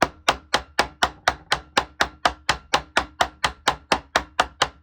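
Rapid, even hammer blows, about four a second, each with a short metallic ring: a mountaineering hammer peening the cut-off end of a steel joist hanger nail on an anvil, spreading it into a mushroomed rivet head.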